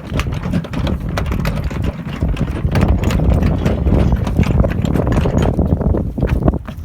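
Running footsteps, a quick run of short knocks over a constant low rumble.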